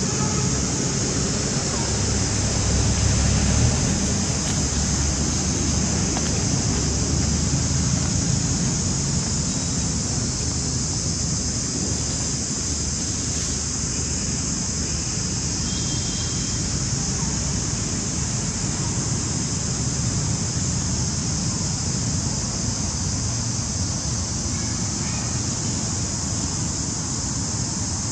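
Steady outdoor background noise: a low wind-like rumble on the microphone with a constant high hiss above it, unchanging throughout.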